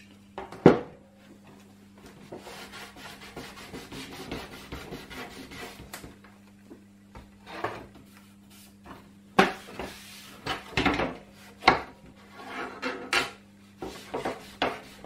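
Cloth rubbing and wiping over a plastic computer case, with the case shifted and knocked on the bench: one sharp knock a little under a second in, then a soft scrubbing stretch and a run of short, sharp wipes and knocks in the second half. The wiping lifts solvent-softened sticker residue off the plastic.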